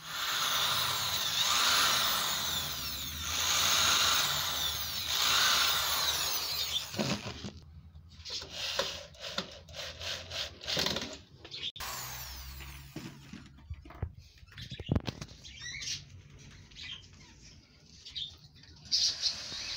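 Cordless drill driving screws into pallet-wood slats, the motor whine rising and falling in long bursts for about the first seven seconds, then shorter bursts and knocks of wood being handled.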